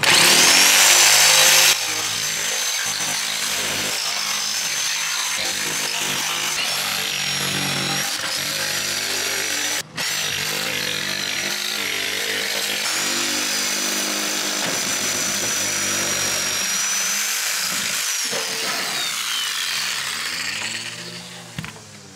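Reciprocating saw (Sawzall) with a metal-cutting blade cutting through a van's sheet-metal roof, with a steady high whine. It is loudest in the first two seconds, stops for a moment about ten seconds in, and near the end the motor winds down with a falling whine.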